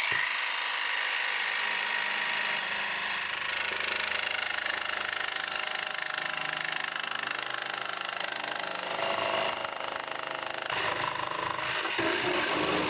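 Jigsaw with a fine blade cutting a 2 mm plastic hobby-glass sheet, running without a break; the sound changes character near the end.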